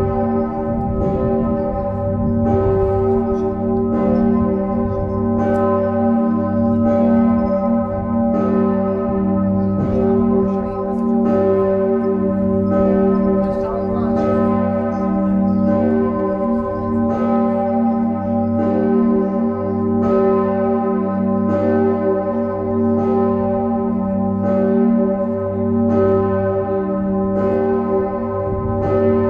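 Church bell 'Osanna' (bell 1, tuned to g°) ringing alone on the swing. Its clapper strikes about once a second, and each stroke rings on into the next over a deep, steady hum an octave below the strike note.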